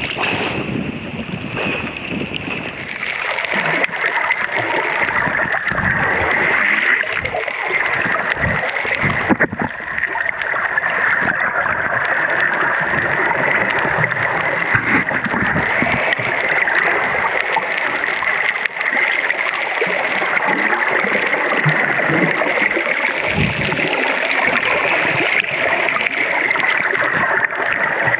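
Sea water sloshing and splashing against a snorkeler's action camera at the surface. A few seconds in the sound turns to a muffled, steady rushing of water as the camera goes under, with low gurgles now and then.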